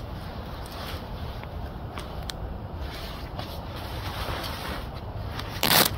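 Sleeping bag fabric rustling and scraping as hands open it out and smooth it flat, with a few small clicks, over a steady low wind rumble. A brief, much louder bump or rustle comes near the end.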